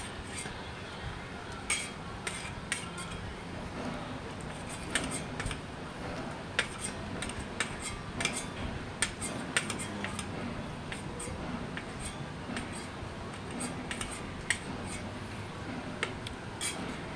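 Stainless steel spoon scraping and clinking against an empty stainless steel plate, in many short, irregular taps as the last grains of rice are gathered up.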